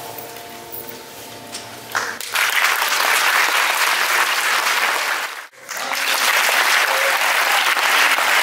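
The closing notes of a soprano aria with piano fade away, then an audience breaks into sustained applause about two seconds in. The applause drops out for an instant near the middle and resumes.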